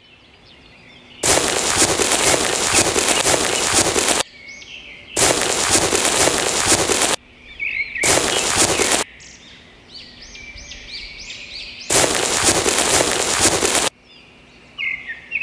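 Dry sand poured and sprinkled onto a board: a loud crackling hiss in four spells of one to three seconds that start and stop abruptly. Birds chirp in the quieter gaps between them.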